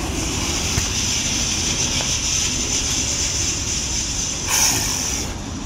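Touchless car wash air dryers running at full blast, a steady rushing roar with a constant high whine, blowing water off the car. A brief louder surge of air comes about four and a half seconds in.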